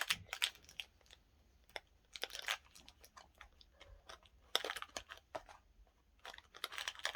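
Scattered light clicks and short rustles of small mini-food erasers being handled and put back.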